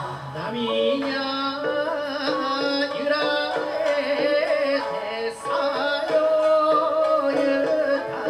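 Japanese folk song (min'yo) sung by a male voice, accompanied by shamisen, shakuhachi and drums.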